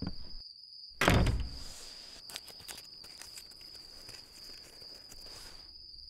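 A door slams shut about a second in, followed by faint rustling and a few small clicks. A steady high chirring of crickets runs underneath.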